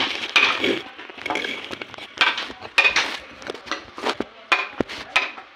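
An irregular series of sharp metallic clinks and knocks, some ringing briefly, like metal tools or hardware striking one another in a woodworking shop.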